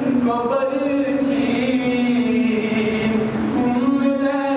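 A man chanting a mournful religious recitation into a microphone, drawing the syllables out into long held notes.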